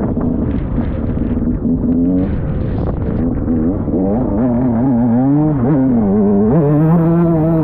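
KTM SX 125 two-stroke motocross engine revving as the bike is ridden, its note rising and falling with the throttle, then holding a steadier, higher note from about two thirds of the way through.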